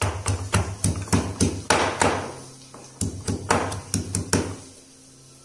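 Stone pestle pounding garlic cloves and green chilli in a stone mortar: two runs of quick sharp knocks, about five a second, with a pause of about a second between them.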